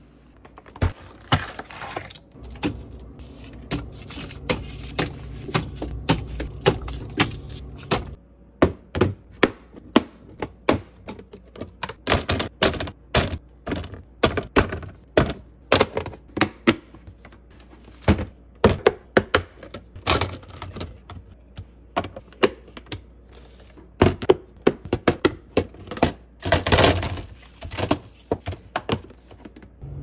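A sponge scrubbing a soapy plastic fridge drawer, then a quick run of clicks and knocks as plastic food containers and tubs are handled, latched shut and set down on fridge shelves.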